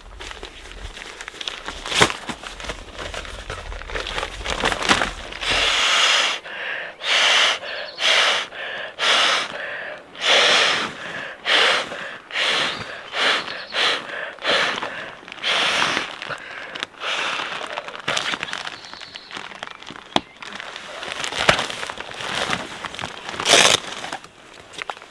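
Crinkling rustle of tent nylon and gear, then a run of about ten hard breaths, roughly one a second, blown into the valve of an inflatable sleeping pad. More rustling and a few sharp clicks follow as the pad and gear are pushed into the tent.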